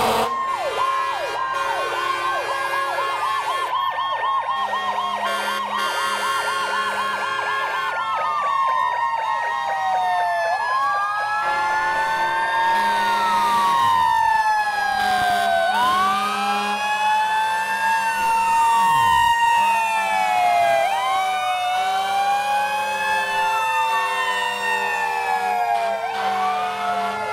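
Several fire truck sirens sounding at once, their wails rising and falling out of step with one another, with a fast yelp warble in the first few seconds. Low, steady horn blasts sound on and off beneath them.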